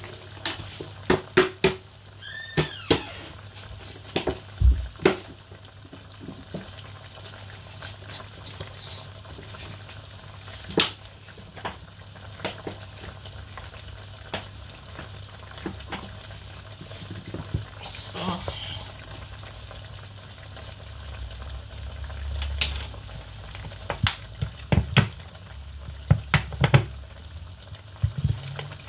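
Spatula stirring meat in a large aluminium pot, knocking and scraping against the metal many times at uneven intervals, over the steady sizzle of the meat cooking in the hot pot.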